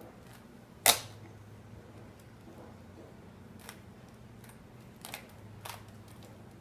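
Rubik's cube being turned by hand: sharp plastic clicks, one loud snap about a second in and a few fainter clicks later, over a faint steady low hum.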